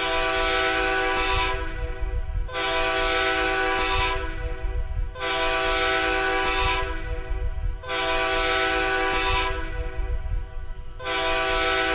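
Train air horn sounding a chord in a series of similar blasts of about a second and a half each, five of them, over the steady low rumble of the moving train. This is the horn warning given when a train approaches a grade crossing.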